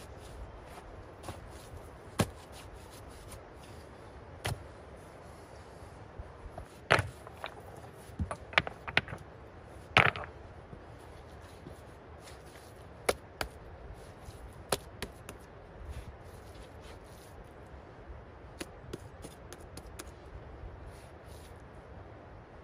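Hand tools working stony soil: a small metal shovel blade cutting into earth, then a trowel scraping up soil and packing mud between stones. These come as scattered sharp scrapes and clicks, a few every second or two, with the loudest cluster about seven to ten seconds in.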